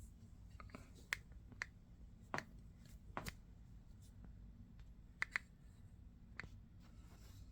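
Scattered light clicks and taps of hands handling a model airliner, about seven in all with two in quick succession a little past the middle, over a low steady hum.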